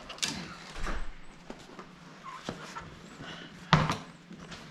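Fat bicycle tire and wheel handled by hand while the tire is worked back onto its rim: rustling rubber and scattered small clicks, with one loud thump near the end as the wheel is turned over.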